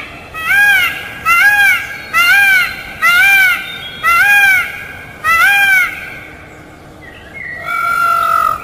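Peacock calling: six short, loud calls that rise and fall in pitch, about one a second, then a pause and one longer, flatter call near the end.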